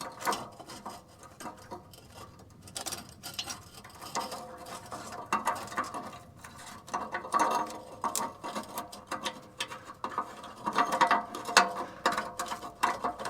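Hand socket ratchet clicking in short runs as fasteners are worked on the exhaust pipe-to-muffler joint repair; the runs are busier and louder in the second half.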